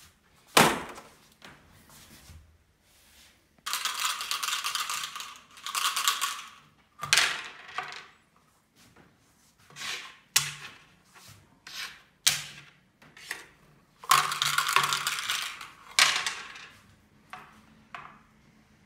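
Backgammon dice rattled in a dice cup, a rattle of a second or two heard a few times, with sharp clicks and clatters of dice landing and wooden checkers being set down on the wooden board.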